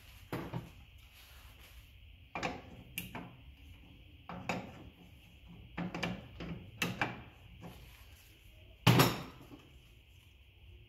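Scattered metal clunks and knocks from a ratchet wrench working the large nut that holds an EZ-GO golf cart's contact board, with the loosened board and bracket knocking against the frame. There are about eight uneven knocks, and the loudest comes near the end.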